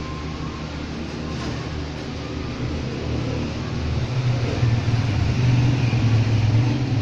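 A low, steady engine hum that grows louder about four seconds in and eases off slightly near the end.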